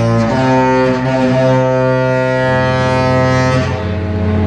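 Disney cruise ship's musical horn playing a tune in a horn battle: a run of long, deep held notes that step to a new pitch every second or two.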